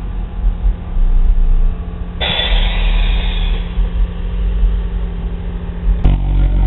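Loud, deep bass pounding from a car audio system of six JL Audio 13W7 subwoofers, with a rush of hissy noise about two seconds in that lasts a little over a second.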